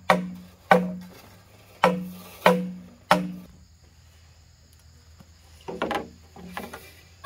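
Hand tool chopping into wood: about nine sharp strikes, each with a short hollow ring. Five evenly spaced blows come first, then a pause of about two seconds, then four quicker, lighter blows near the end.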